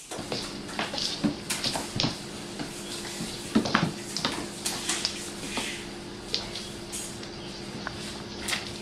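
Irregular scuffs, taps and rustles of people crawling on hands and knees across a tile floor, a few of them louder, over a steady low hum.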